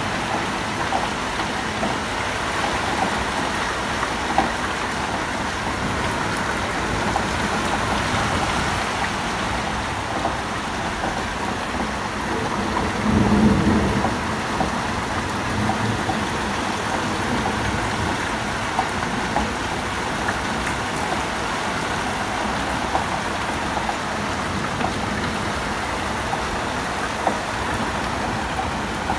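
Rain falling steadily during a severe thunderstorm, an even hiss throughout. About halfway through, a brief low rumble swells and fades.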